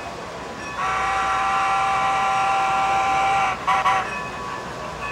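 Model steam locomotive's sound-system whistle, a model of Strasburg Rail Road No. 90, blowing one long steady blast of about three seconds, then two quick short toots.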